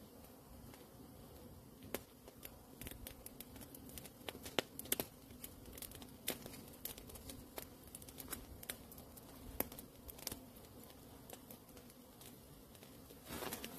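Scattered faint clicks, scrapes and crackles at irregular intervals from digging into soil, over a faint steady low hum.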